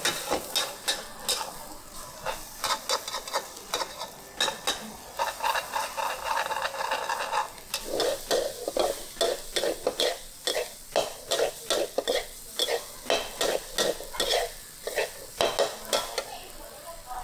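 Metal spatula scraping and knocking against a hot wok while stir-frying food that sizzles. About halfway through, the strokes settle into a steady rhythm of two or three a second.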